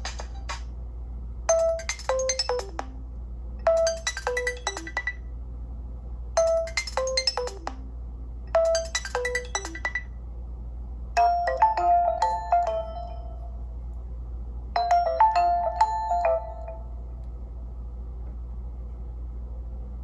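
A Nokia Lumia 1520's built-in Windows Phone 8 ringtone playing through the phone's own loudspeaker. A short phrase of notes stepping downward sounds four times, then a busier, higher phrase sounds twice. The tune stops about three seconds before the end.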